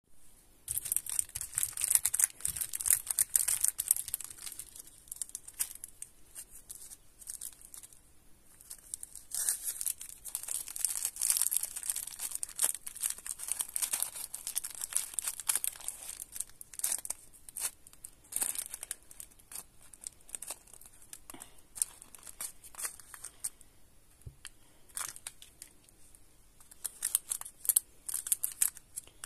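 Hands crinkling and tearing open the plastic and foil wrappers of lollipops, in bursts of crackling with quieter spells between.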